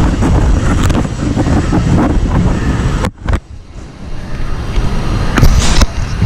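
Loud rumbling noise on the camera's microphone as the camera is moved and handled, with a few knocks. It drops out briefly about three seconds in.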